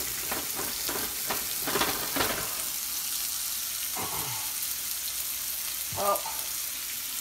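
Chicken breast and chopped kale frying in oil in a hot nonstick pan: a steady sizzle, with scattered pops and crackles in the first couple of seconds.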